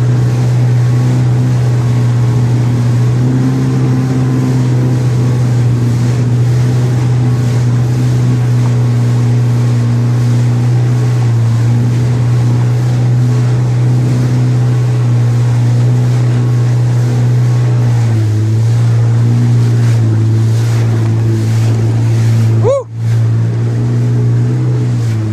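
Jet ski engine running at a steady cruising speed, a constant drone, with wind and water rushing past. The engine note drops slightly about 18 seconds in, and the whole sound dips sharply for a moment near the end.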